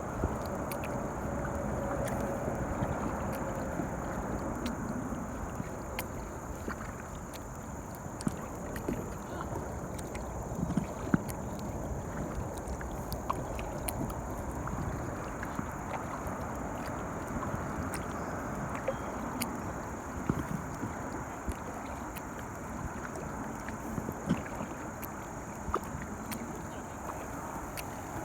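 Water sounds of a kayak moving on a river: paddle-stirred water splashing and gurgling, with scattered small clicks and knocks.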